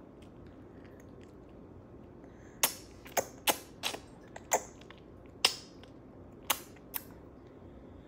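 A baby chewing finger food with open-mouthed smacking: about eight short, wet clicks and smacks of lips and mouth, starting a little over two seconds in and spaced irregularly.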